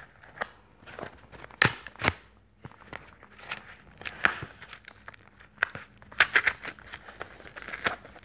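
Cardboard box being opened by hand: tearing, crinkling and rustling of cardboard and packing, with scattered clicks. Two sharp knocks come about a second and a half to two seconds in, and the rustling grows denser near the end.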